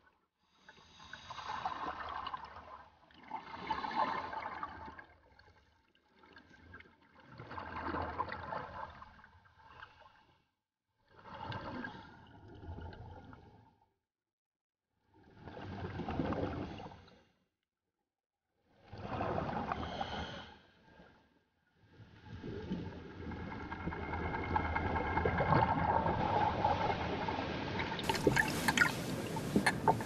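Scuba diver breathing through a regulator underwater: exhaled bubbles gurgle out in bursts of about two seconds, every three to four seconds. From about 22 seconds in, a continuous rush of water takes over.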